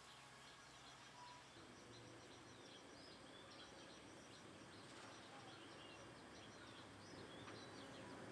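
Faint birdsong: many short, high chirps and trills from several birds, over a low, even background hiss.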